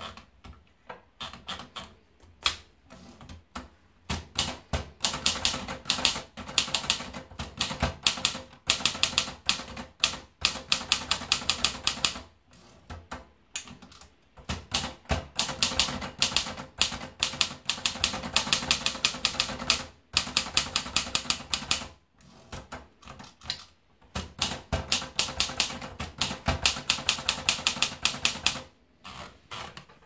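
Brigitte portable manual typewriter being typed on: fast runs of sharp key and typebar strikes in several long bursts, broken by short pauses.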